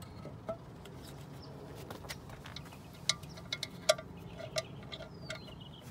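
Light, scattered clicks and taps of the plastic seal plate of a Pentair IntelliFlo pool pump being handled and fitted onto the motor, several with a short ringing note, the sharpest about four seconds in.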